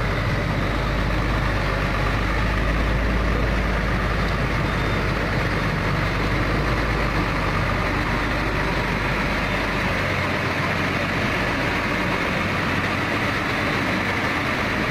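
Hino three-axle dump truck's diesel engine running steadily at low revs as the truck creeps forward on a dirt lane. The deepest part of the rumble eases about ten seconds in.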